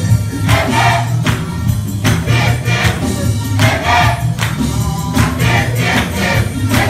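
Gospel choir singing over a heavy bass line and a steady beat.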